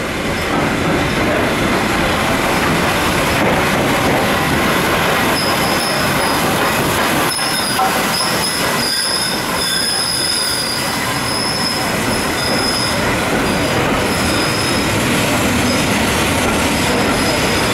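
Steam-hauled passenger train headed by LMS Ivatt Class 2 2-6-0 No. 46521 rolling slowly along a station platform, giving a steady rumble of wheels on rails. A high squeal from the wheels comes in about five seconds in and carries on, on and off, until near the end.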